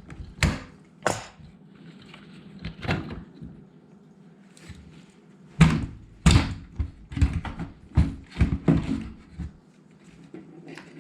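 Hard knocks and clunks of parts being handled while the dishwasher's pump and motor assembly is worked loose: a few single knocks, then a quick run of about ten from just past halfway on.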